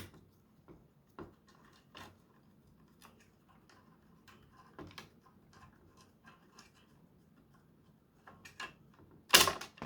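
Scattered small clicks and taps of plastic parts being worked on a Nerf Gatling blaster's mechanism, then near the end a loud, sudden snap as a tight spring is pried off and springs free.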